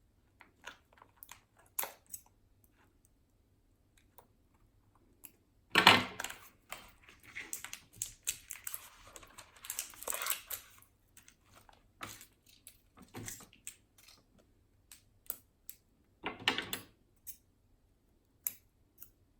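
Plastic slime packaging being cut and worked open with scissors: scattered clicks and snips, with a louder stretch of crinkling between about six and eleven seconds in and another burst near the end.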